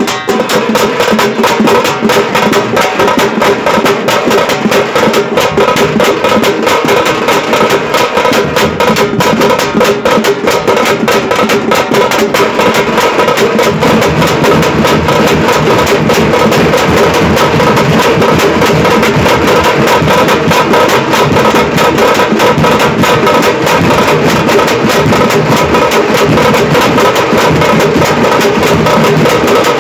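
Loud drum music with fast, unbroken beating, the percussion played for a hulivesha tiger dance.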